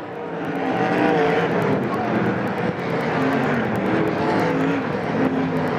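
Several sprint car engines racing on a dirt oval. Their overlapping notes rise and fall in pitch as the cars run through the turns and down the straights.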